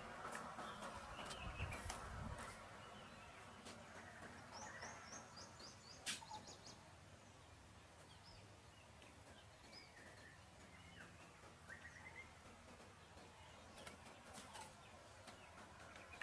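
Faint birdsong: scattered chirps and short whistles, with a quick trill about five seconds in and a single sharp click about six seconds in.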